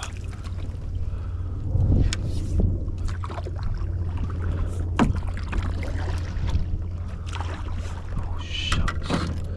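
Wind rumbling on the microphone, with scattered knocks and clicks from a Hobie Pro Angler fishing kayak being worked through a tight gap.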